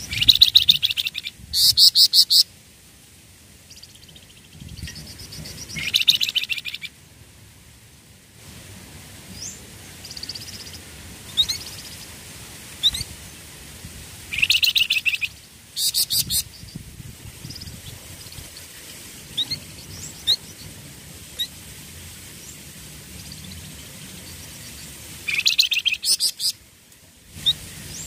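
Flamboyan songbirds calling: about six bursts of rapid, rattling trilled notes, each a second or less, with scattered short high chirps between them.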